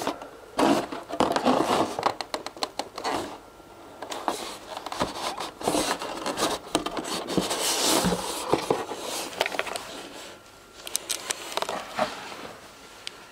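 A stuck cardboard box lid being worked loose by hand: irregular scraping and rubbing of cardboard with scattered knocks and rustles.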